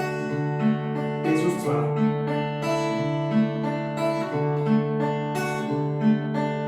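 Acoustic guitar picked note by note through a D major chord, changing to Dsus2 about two seconds in, the strings ringing on into each other.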